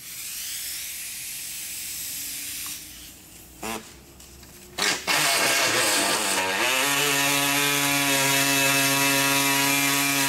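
Handheld air-powered cutting tool starting up about five seconds in, rising in pitch, then running at a steady pitch as it cuts through a fiberglass body panel.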